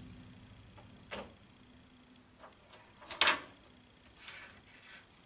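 Handling noise from small hand tools and the camera's plastic housing: a handful of light clicks and taps, the loudest about three seconds in.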